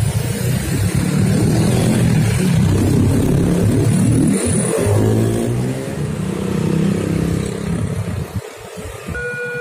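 Road traffic driving over a level crossing: a heavy dump truck passes close by, its engine note dropping as it goes past, with motorcycles and cars around it. Near the end the crossing's electronic warning alarm starts up with steady tones.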